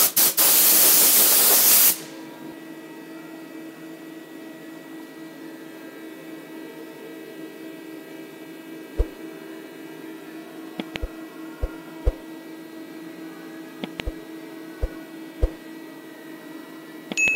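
A blast of compressed air hisses loudly for about two seconds, blowing bristle fibres off the chewed paint brush, and cuts off suddenly. After it the CNC mill hums steadily, with a handful of sharp knocks as the brush is handled and taken out of the vise.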